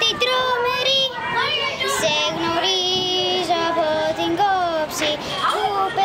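A young girl singing a melody, holding some notes for about a second and sliding between pitches.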